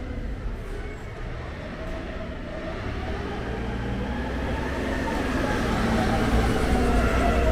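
Low vehicle rumble of street traffic, growing steadily louder as it draws near and loudest near the end.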